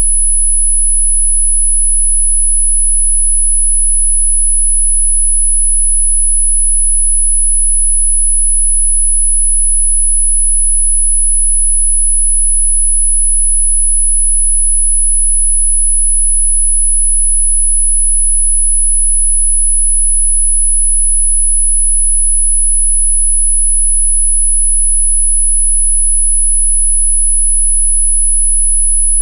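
A single steady, very high-pitched sine tone, held unchanged throughout: an electronically generated pure tone of the 'healing frequency' kind.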